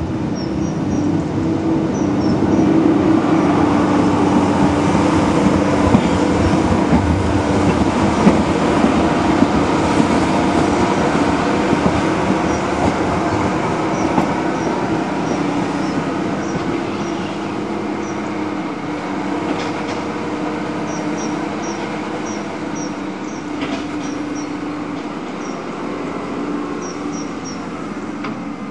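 Rail-mounted excavator's diesel engine running steadily as the machine travels along the track with a loaded ballast skip wagon, its wheels running on the rails. The sound is loudest a few seconds in and eases a little later.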